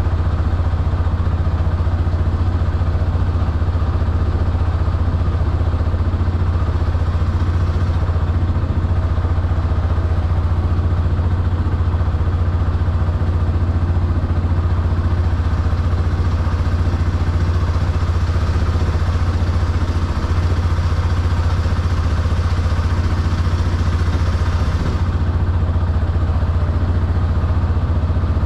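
Arctic Cat side-by-side's engine running steadily with a deep, even hum that holds the same pitch and level throughout.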